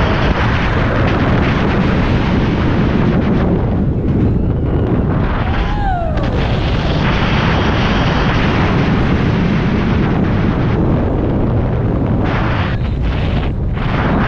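Wind rushing and buffeting over a chest-mounted action camera's microphone as a steel dive coaster train runs at speed through its course, with a steady rumble underneath. A brief falling cry comes about six seconds in, and the wind noise turns choppy near the end.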